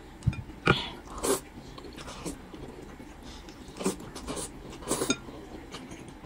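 A person slurping noodles from a bowl with chopsticks: a series of short, loud slurps with quieter chewing between them.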